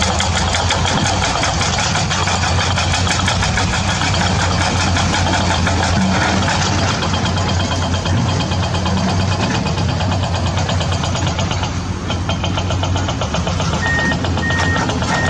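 An engine running steadily with a fast, even knock. Near the end, a run of evenly spaced high beeps joins it.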